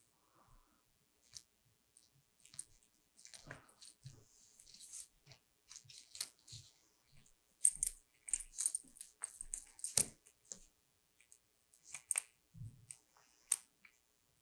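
Irregular small clicks and taps from handling a kite control bar's hard plastic and metal parts, with a short rustle of line partway through and the sharpest clicks past the middle.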